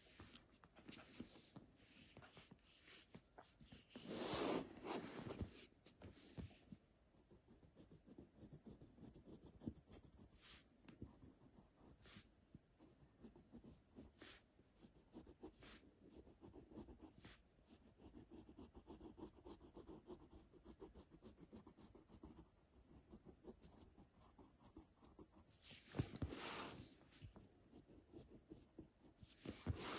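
Pencil scratching on a sheet of paper as lines are sketched, faint, with louder, scratchier stretches about four seconds in and again near the end.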